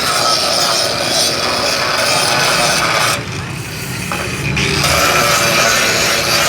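Power grinder scraping over the metal of a frying pan, a continuous abrasive rasp with a steady whine, easing off briefly about three seconds in and then picking up again.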